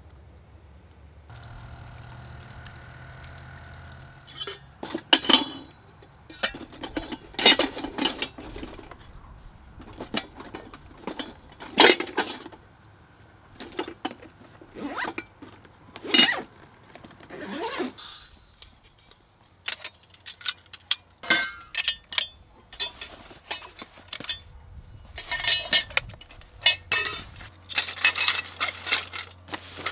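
Camping gear being packed away by hand: a string of separate clinks, knocks and rustles as metal cookware and stove parts are set down and stowed in soft cases, growing denser and scratchier near the end.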